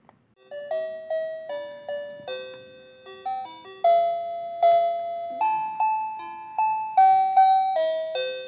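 A children's toy educational laptop playing an electronic chime melody through its small speaker: single beeping notes one after another, each struck sharply and fading, starting about half a second in.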